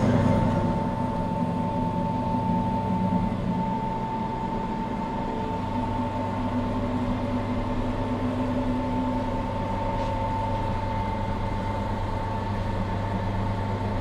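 Seat Ibiza 6L 1.9 TDI diesel engine idling steadily through its new silencer-deleted exhaust: a constant low hum with a steady whine over it.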